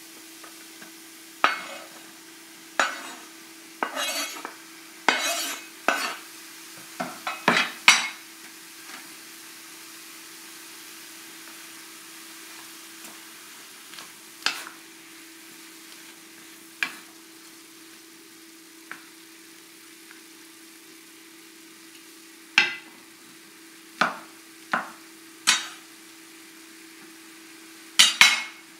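A knife clacking and scraping on a wooden cutting board as sliced mushrooms are pushed off into an enameled cast iron skillet, with a quick run of sharp knocks in the first eight seconds. A wooden spatula then stirs the vegetables with occasional knocks against the pan. A faint sizzle and a steady low hum sit underneath.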